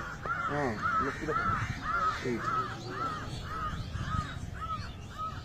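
A bird calling over and over in a steady run of short, clear, arched notes, about two a second.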